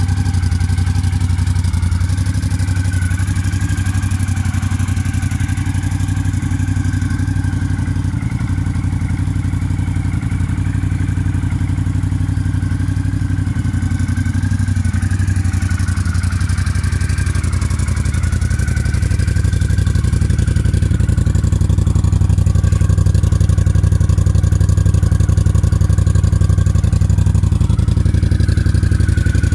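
Honda CX500 cafe racer's liquid-cooled V-twin idling steadily through short aftermarket exhaust pipes. It gets somewhat louder about two-thirds of the way in.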